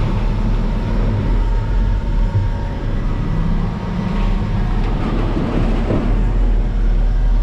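Concrete mixer truck's diesel engine running with a steady low rumble.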